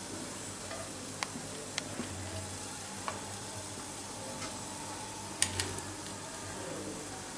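A spoon clinking a few times against a pot of chicken dum biryani as the rice is checked, over a steady sizzling hiss from the pot; the loudest clinks come as a pair a little past the middle.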